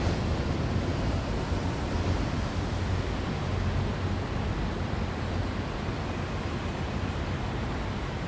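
Taipei Metro train running away along an elevated viaduct, a steady low rumble that slowly fades as it recedes.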